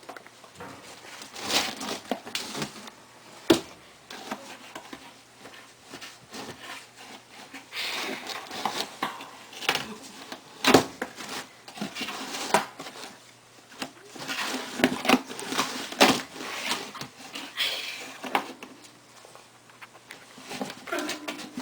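Pets pushing and scrabbling against an empty plastic litter box: irregular scuffs, scrapes and rustles with a few sharp knocks of the box.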